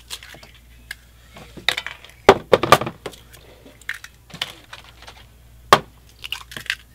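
Hen's eggs being cracked two at a time, as fast as possible: a series of sharp, irregular shell cracks.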